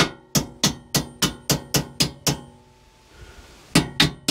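Claw hammer tapping on the bent steel brackets of a rock and roll bed's latch mechanism to straighten them: a quick run of about ten light strikes, roughly four a second, a pause of over a second, then another run of strikes near the end. The bent brackets were dragging on the bar and making the latch stick.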